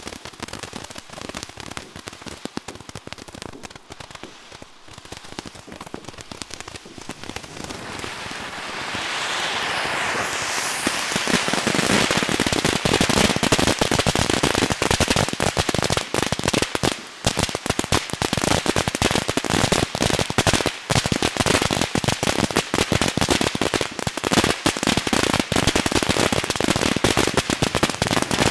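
'Shapka Monomakha' pyrotechnic fountain burning: a dense, continuous crackle of small pops over a hiss of sparks, building up between about eight and twelve seconds in and staying loud from there.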